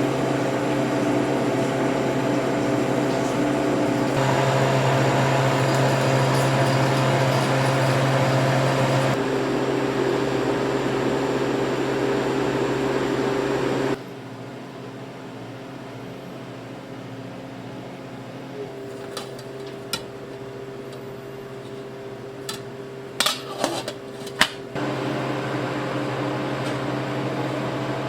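Steady mechanical hum of a motor or fan, a low drone with several steady tones, changing abruptly a few times. About halfway through it drops to a quieter background with a few sharp clicks and knocks, and the hum comes back near the end.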